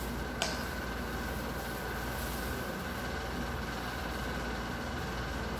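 Steady machine hum, even throughout, with a single light click about half a second in.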